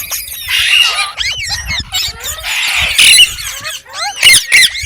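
Green parrot calling in a rapid string of shrill chirps and squawks, each call a quick rising-and-falling note. The calls are loudest near the end.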